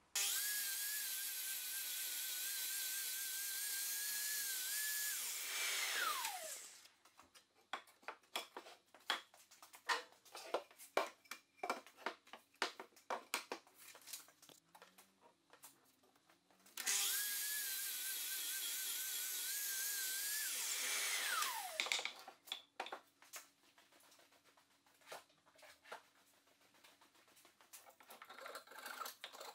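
Festool sliding mitre saw starting and cutting through solid oak, its motor whine held steady with a slight wobble under load, then winding down with a falling whine. Sharp wooden knocks and clacks follow as the cut blocks are handled, and a little past halfway the saw makes a second cut and winds down again.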